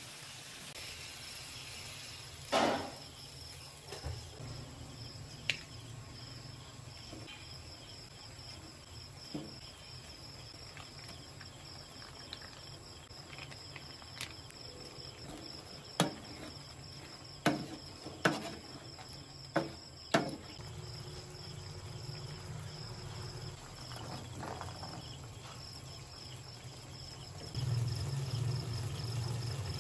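Shrimp cooking in a frying pan on a gas stove, with a spoon knocking against the pan in about half a dozen sharp clinks, most of them bunched together a little past the middle. A steady high-pitched tone sits underneath, and a low rumble grows louder near the end as the sauce simmers.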